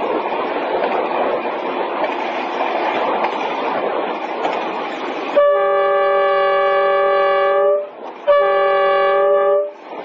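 Train running along the track with a steady rushing noise. About halfway through, its horn sounds twice, a long blast and then a shorter one, as a warning to animals on the track ahead.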